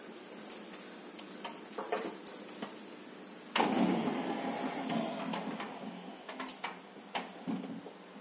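Automatic bifold (sliding-folding) door running as its folding glass panels travel along the overhead track to close. The operator noise starts abruptly about three and a half seconds in and eases off gradually, with scattered light clicks.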